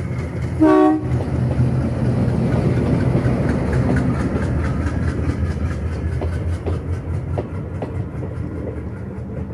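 Indian Railways diesel locomotive hauling a passenger express close past, giving a short horn blast about half a second in over its running engine. The coaches then roll by with a steady, regular clickety-clack of wheels over the rail joints.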